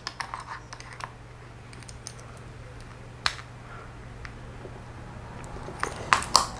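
Sparse small clicks and taps of hand tools on metal differential parts while the outdrive retaining screw is tightened, with a sharper click about three seconds in and a few quick ones near the end, over a low steady hum.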